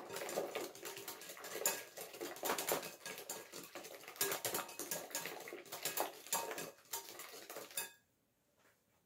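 Wire whisk beating eggs and sugar in a glass bowl: a fast, continuous clatter of the wires against the glass that stops about eight seconds in.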